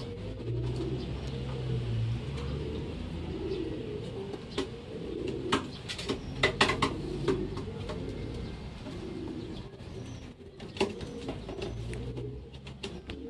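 Racing pigeons cooing, with a handful of sharp clicks and taps in the middle and one more near the end.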